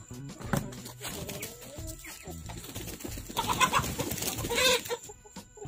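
Domestic chickens clucking as they come out of the coop, growing louder for about a second and a half near the middle.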